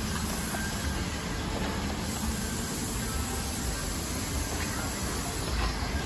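A minivan driving slowly and pulling into a nearby parking space, heard over a steady rushing background noise.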